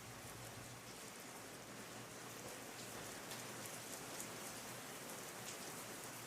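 Steady rainfall, a soft even hiss with scattered faint drop ticks.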